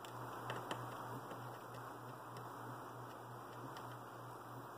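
Faint small clicks and ticks of fine wire and LED leads being handled on a tabletop, two of them a little louder about half a second in, over a steady low hum and hiss.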